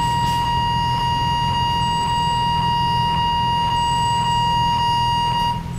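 Railway level crossing warning alarm ringing, a steady electronic tone with strikes about twice a second, over a low steady hum. The alarm cuts off about five and a half seconds in.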